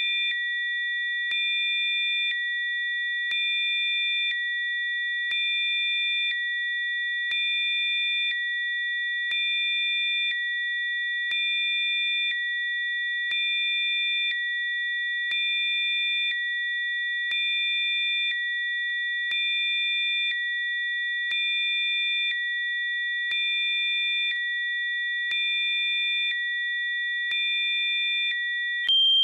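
Synthesized Rife-frequency sine tones: several high, pure pitches held together as a steady electronic chord that pulses slightly louder about every two seconds. Just before the end the chord switches to a single different tone.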